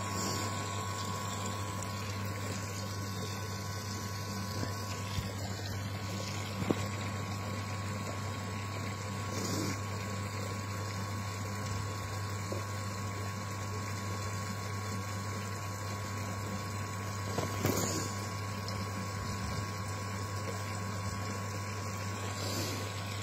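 Koi pond pump running with a steady low electric hum, with a few faint knocks from handling.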